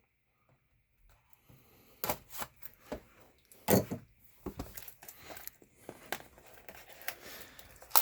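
Packaging on a box of hockey cards being torn and handled as the box is opened. After a near-silent start there are sharp cracks and clicks from about two seconds in, then crinkling.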